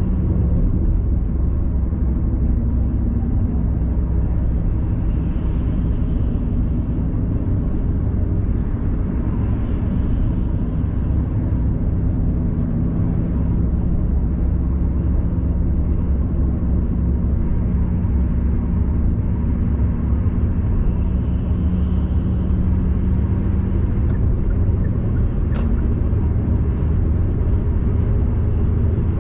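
Car cruising at highway speed, heard from inside the cabin: a steady low rumble of tyres and engine with an even hum. A faint single click near the end.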